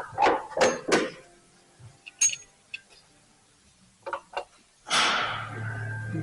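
A few sharp metallic clinks of hand tools on metal, then a power tool starts about five seconds in and runs loudly with a steady low hum under a rushing noise, while engine bolts are removed.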